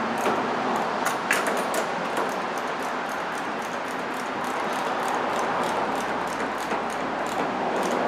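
Battery cable clamp being tightened on its post with a hand tool: light, irregular metallic clicks over a steady hiss of shop fan or air-conditioning noise.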